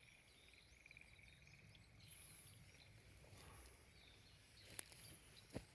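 Quiet outdoor ambience with faint bird chirps and a trill, a high call about two seconds in, and two sharp clicks near the end.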